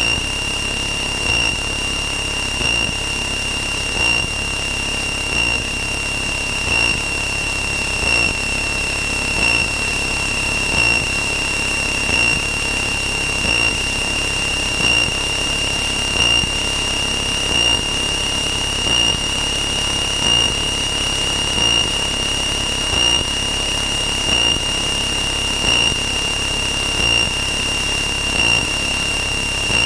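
A steady high-pitched whine that swells slightly about every second and a half, over the low, even hum of a light aircraft's cabin in flight.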